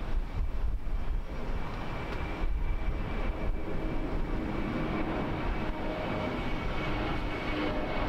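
Jet airliner's twin engines at takeoff power as it lifts off and climbs out: a steady rumble with a thin high whine that comes in a few seconds in.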